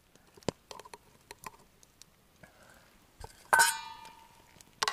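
Metal tongs clicking and clinking against camp cookware as boiled meat is lifted from an army mess pot into a stainless steel bowl. About three and a half seconds in comes one loud clink that leaves the metal ringing briefly, and another short clink near the end.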